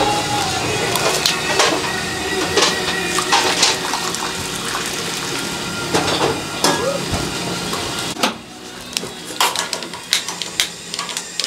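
Chicken broth being ladled and poured into earthenware pots holding whole chickens, with sharp clinks of the metal ladle against the pots. The pouring stops about eight seconds in, leaving only scattered clinks.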